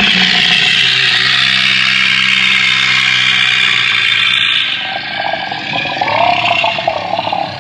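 Triceratops dinosaur roar sound effect: one long, loud, harsh roar over a low pitched base. After about five seconds the harsh top eases into a wavering lower bellow that fades near the end.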